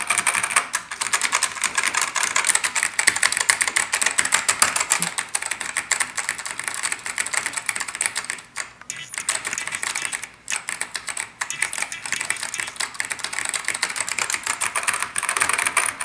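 Fast, continuous typing on a Dell AT101W mechanical keyboard with Alps key switches: a dense clatter of keystrokes, broken by two short pauses about halfway through.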